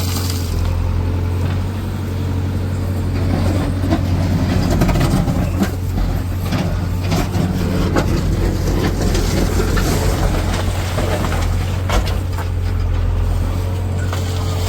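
Tata Hitachi Shinrai backhoe loader's diesel engine running steadily, with scattered clanks and knocks throughout.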